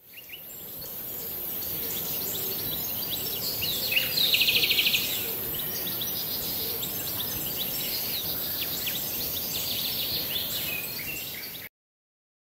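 Outdoor ambience of birds chirping with many short calls over a steady background hiss, with a fast trill, the loudest part, about four to five seconds in. It fades in at the start and cuts off shortly before the end.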